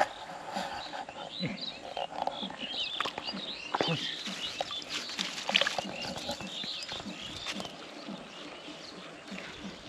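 Wild animal calls: many short high chirps over a low call repeating a few times a second, with a few sharp knocks in the middle.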